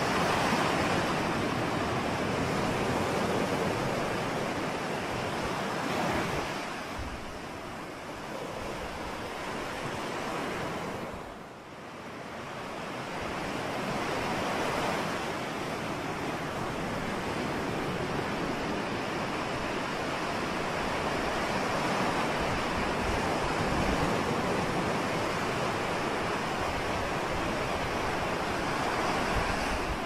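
Ocean surf: waves breaking and washing up the shore in a continuous rush that swells and eases, with one brief lull a little before halfway.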